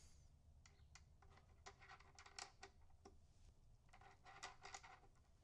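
Faint small clicks and light metallic clinks in two clusters, typical of small steel T-nuts and hardware being picked up and handled.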